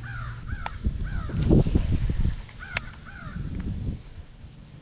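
A crow cawing in two runs of about three caws each, the runs a couple of seconds apart. A louder low rumble comes between them.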